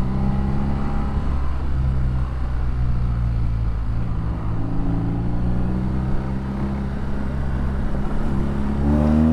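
BMW R nineT's air/oil-cooled boxer twin running through an Akrapovic exhaust at a steady road speed, its pitch rising near the end as the bike accelerates.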